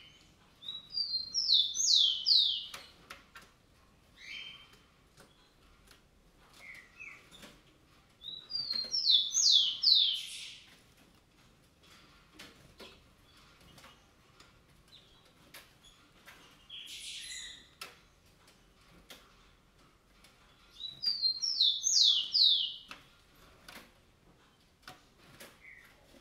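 A bird calls the same short phrase of five or six quick, falling, whistle-like notes three times, several seconds apart. Between the phrases there are faint scattered ticks and one brief harsh, noisy call about two-thirds of the way through.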